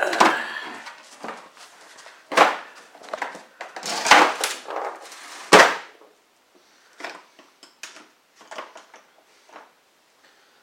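Tools being handled in a plastic socket-set case: a few sharp clacks and knocks over the first six seconds, the loudest near six seconds in, then lighter scattered clicks.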